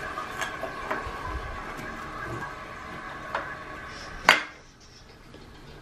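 Water running in household plumbing, a steady whine with a few light clinks of a small dish being handled; it stops with one sharp knock about four seconds in.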